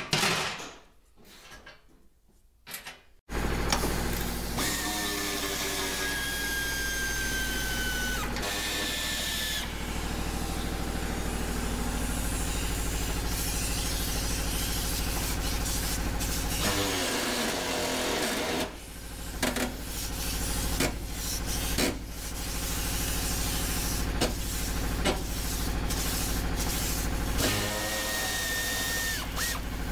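A steady machine hum with a strong low drone starts abruptly about three seconds in and runs until near the end, with a few faint clicks and knocks on top.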